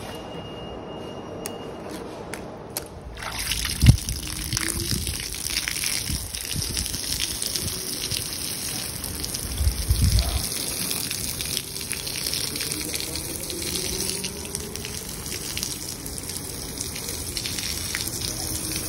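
A steady rush of falling, splashing water starts abruptly about three seconds in, after a low muffled rumble, and carries on throughout. A dull thump comes about a second after it starts, and another around ten seconds in.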